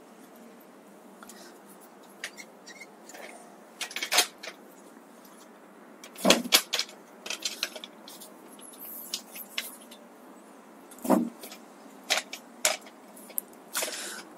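Scattered metallic clicks, clinks and knocks as a road bike's wheel is worked out of the frame, the wheel sticking in the frame before it comes free.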